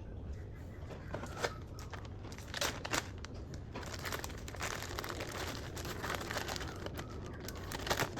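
Plastic bag crinkling as it is handled, a run of irregular crackles that is busiest in the middle seconds.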